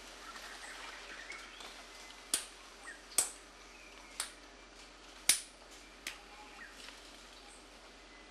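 A chimpanzee cracking a nut with a stone: several sharp knocks at irregular intervals, the loudest about three and five seconds in. Faint bird chirps behind.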